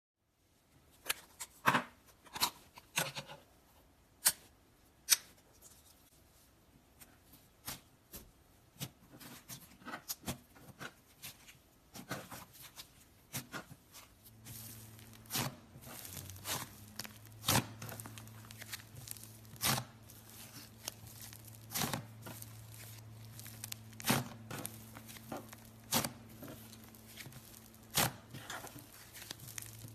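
Hands squeezing and poking slime, making sharp pops and clicks at irregular intervals. A low steady hum comes in about halfway through.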